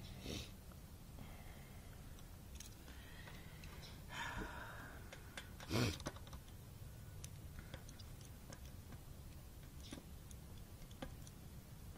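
Small screws and a hex key clicking and scraping as they are worked by hand into a metal fuel pump plate, over a low steady hum. There is a short rustle about four seconds in and one sharp knock just before the six-second mark.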